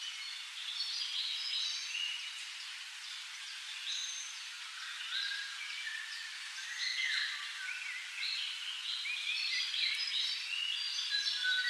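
Several birds singing and calling over one another in a dawn chorus: many short whistled notes and quick glides up and down in pitch, overlapping continuously at a steady level. The sound is thin, with no low end at all.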